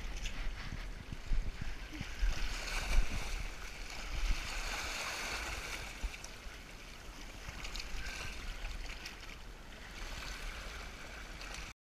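Sea surf washing and swirling over rocks at the water's edge, a steady hiss of moving water with irregular low thumps on the microphone; the sound cuts off suddenly near the end.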